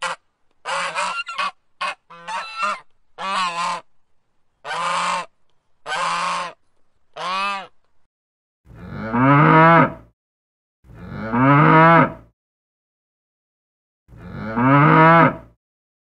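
Black swans honking, a run of short calls over the first eight seconds or so. Then a cow moos three times, each moo long and louder than the honks.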